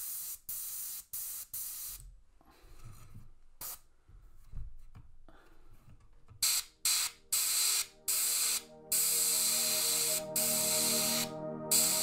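Gravity-feed airbrush spraying thinned paint. The air hiss comes in short trigger bursts, pauses for a few seconds midway, then returns in bursts that run into longer, almost continuous spraying near the end.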